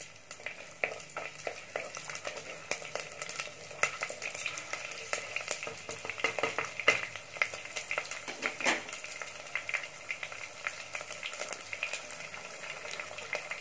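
Curry leaves, sliced green chillies and whole spices sizzling and crackling steadily in hot oil in a clay pot, stirred with a wooden spatula.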